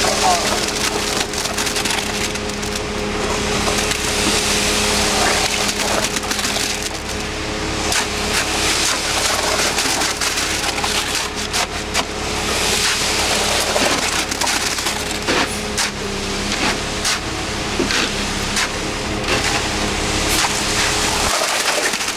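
Wet concrete sliding off a mixer truck's chute and being shovelled into a trench, a constant gritty scraping and crunching with many small knocks, over the steady hum of the concrete truck's engine. The low hum drops away near the end.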